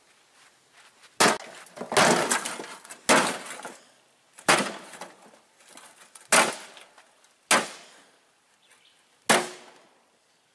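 A hickory club smashing an old metal bucket on the ground: about seven heavy strikes at irregular intervals, each trailing off briefly.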